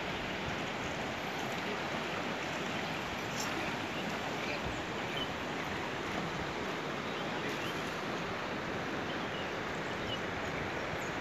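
Shallow rocky river rushing steadily over stones.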